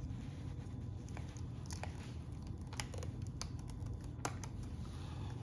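Scattered light clicks and crackles of thin plastic gauge-face overlay and instrument-cluster parts being handled, over a steady low hum.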